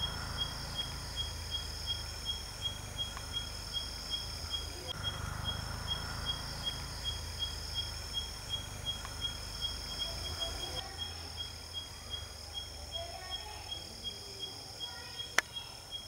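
Tropical night chorus: a short, high chirp repeats evenly a little over twice a second over a steady high insect trill, with a low hum underneath. A single sharp click sounds near the end.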